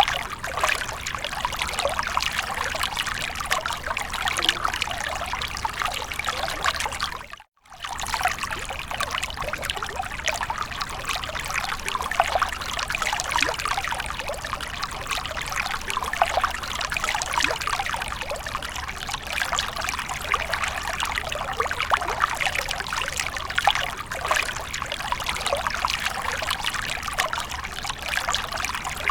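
Fountain water trickling and splashing steadily. The sound drops out completely for a moment about seven and a half seconds in, then resumes.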